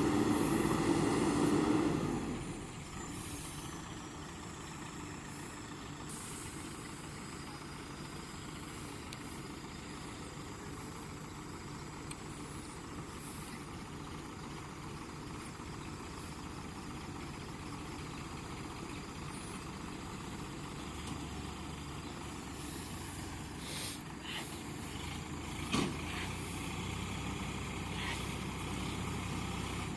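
Diesel engines of a working backhoe loader and farm tractor running. They are louder for the first couple of seconds, then settle to a steady hum, with a few sharp knocks near the end.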